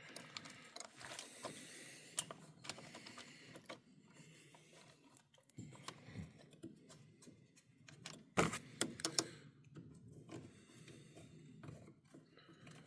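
Faint clicks and light rattles of small parts and hand tools being handled while a Pioneer chainsaw is put back together, with a sharper knock about eight seconds in.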